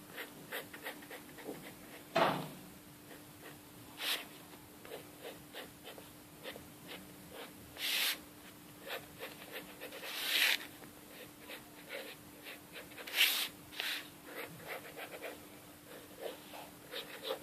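Drawing on paper: many short soft scratching strokes, with four louder hissing puffs near the microphone.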